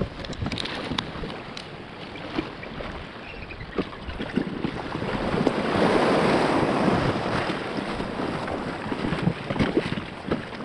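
Wind buffeting the microphone over water sloshing against a plastic kayak hull, with scattered light knocks on the boat. About halfway through comes a louder stretch of splashing as a person steps out of the kayak into shallow water.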